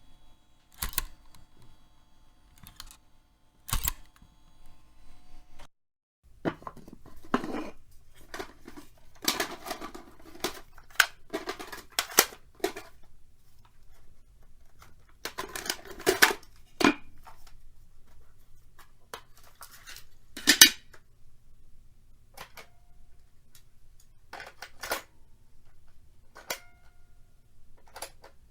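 Plastic clicks and clacks of a cassette tape and its player being handled: a few single clicks, then dense runs of rattling clicks, one loud clack, and lighter clicks toward the end.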